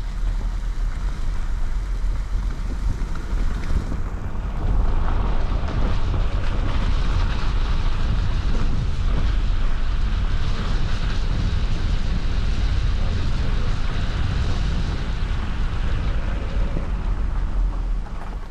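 Vehicle driving along a rough back road, with a steady low rumble of tyres and road noise mixed with wind noise. It grows louder about four seconds in and eases off at the very end.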